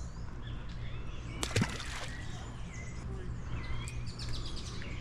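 Birds chirping and calling, many short rising and falling notes, over a steady low outdoor rumble. There is a sharp click about a second and a half in and a quick run of ticks near the end.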